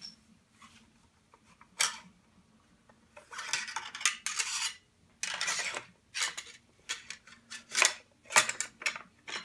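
Benelli Nova pump shotgun being reassembled, its parts clicking and scraping against the receiver. There is a sharp click about two seconds in, a stretch of sliding and scraping from about three to six seconds in, then a run of quick clicks near the end.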